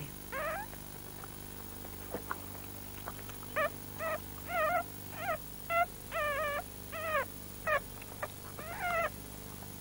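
Newborn puppies whimpering and squeaking: short, high, wavering cries, one near the start and then about nine in quick succession from a few seconds in.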